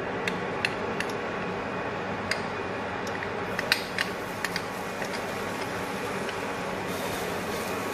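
Steady hum of an induction cooktop's cooling fan, with a few scattered light clicks and ticks in the first half.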